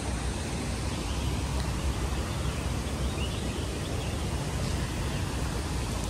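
Steady outdoor background noise with a low rumble, and a few faint, short bird chirps.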